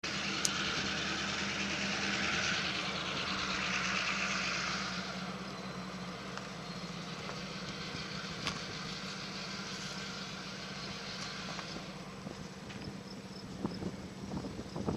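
Union Pacific container train rolling by: a broad rushing noise from wheels on rail, louder for the first few seconds and then easing, over a steady low engine hum, with a few sharp clicks near the end.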